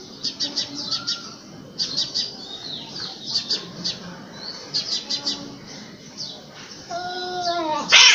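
Two cats in a standoff: a low, drawn-out yowl with a wavering pitch, strongest about seven seconds in, with fainter growls earlier, over steady chirping of small birds. A loud noisy burst breaks out right at the end as the cats close in.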